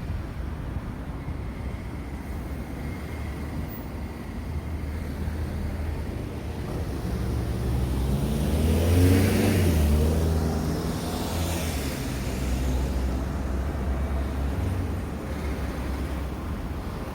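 Road traffic passing a junction: a motor vehicle's engine and tyre noise swell to a peak about nine seconds in, the engine note dropping in pitch as it goes by, with a second smaller rush of tyre noise just after, over a steady low traffic rumble.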